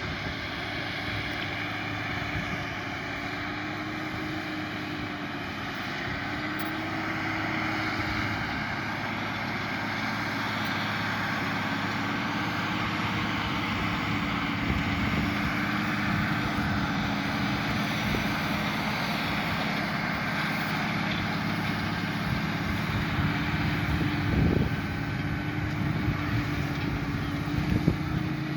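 Tractor engine running steadily under load while pulling a plough, with a slightly wavering drone that grows slowly louder. A couple of short knocks near the end.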